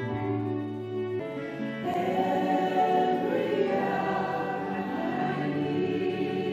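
Christian worship music: a group of voices singing over held instrumental chords, with the singing growing fuller about two seconds in.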